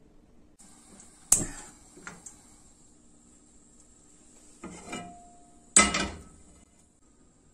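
A crêpe pan clanking on the metal grate of a gas stove: a sharp clank about a second in, a few lighter knocks and a short rattle, then the loudest clank with a brief ring near six seconds as the pan is set back down on the burner.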